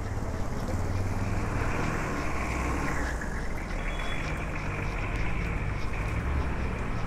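Steady vehicle rumble of road traffic, with wind buffeting the microphone.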